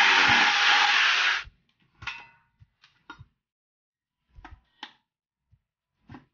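Corded 800 W electric drill running under load as it bores into a metal angle-bar bracket, then cutting off suddenly about a second and a half in. After it stops come a few short clicks and knocks of the metal bar and tools being handled on a wooden box.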